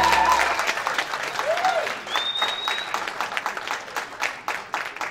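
Audience applauding, the clapping thinning out and fading away; music cuts off about half a second in. A brief high tone sounds about two seconds in.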